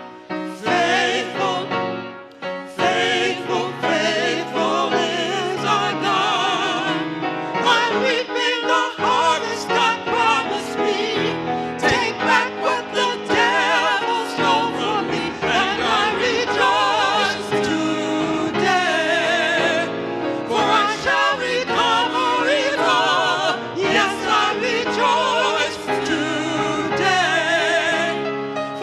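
Church music: singing with strong vibrato over instrumental accompaniment.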